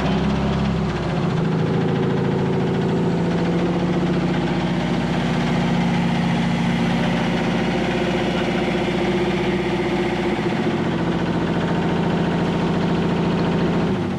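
8V92 two-stroke Detroit Diesel V8 of a 1979 GMC Astro cabover running steadily, then shut off with the in-cab shutoff near the end, the engine note falling away.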